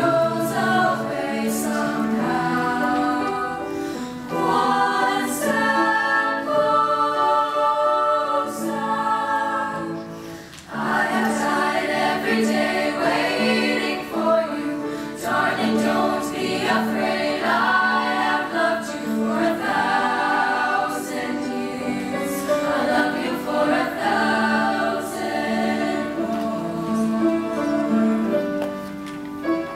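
Girls' treble choir singing in harmony, a steady lower part sustaining beneath moving upper voices. The sound briefly fades about ten seconds in, then the voices come back in together.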